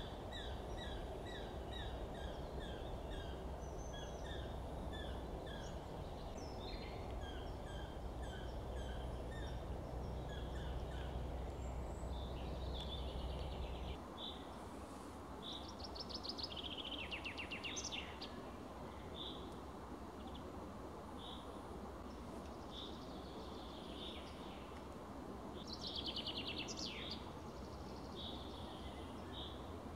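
Small songbirds singing in a forest: a quick repeated two-note phrase through the first half, and short fast trills about halfway and again near the end. Underneath is a steady low rumble that drops away about halfway through.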